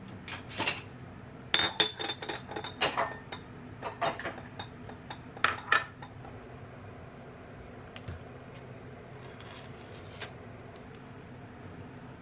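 Cutlery and dishes clinking and scraping: a run of sharp clinks in the first six seconds, then only a few faint ticks.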